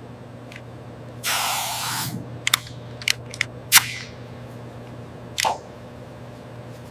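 Pneumatic grease gun: a short hiss of air about a second in, then a run of sharp clicks, the loudest near the middle, over a steady low machine hum.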